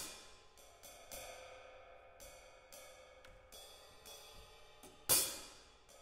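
Solo drum kit played with sticks: sparse cymbal and drum strokes that ring out, with a crash dying away at the start and a second loud cymbal crash about five seconds in.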